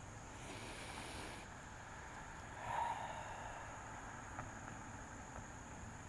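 Faint background of a steady high-pitched insect drone over a low rumble, with a short hiss about a second in and a brief soft swell near three seconds.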